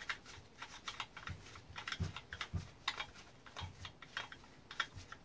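Light, irregular clicks and taps as gloved hands handle and work apart a Husqvarna 357 chainsaw's housing and parts during a teardown.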